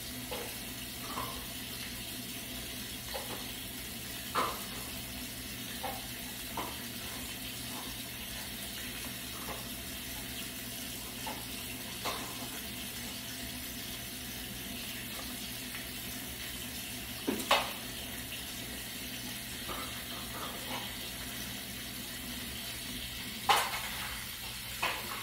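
Bathroom faucet running steadily into the sink while hands are scrubbed together under it during handwashing, with a few brief sharp sounds scattered through, the loudest about two-thirds of the way in and again near the end.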